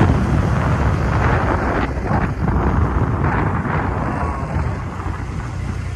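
Wind rushing over the microphone together with the steady road noise of a moving vehicle.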